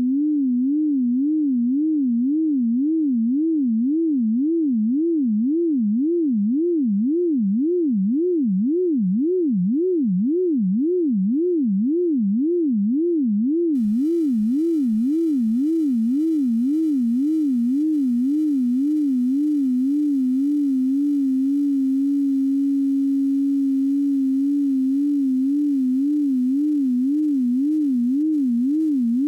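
Computer-generated pure tone, the sonified shape of a mathematical heart curve, warbling up and down in pitch about twice a second. The warble swings wider, then narrower, and faint higher overtones come in about halfway through. Late on the pitch holds steady for a couple of seconds before the warble returns.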